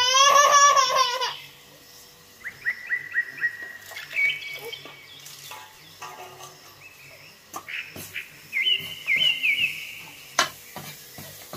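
A baby crying briefly at the start, then a small bird calling in several runs of quick repeated chirps, with a few sharp clicks.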